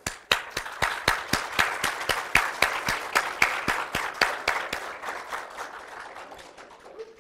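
Audience applauding, starting all at once and gradually tapering off toward the end.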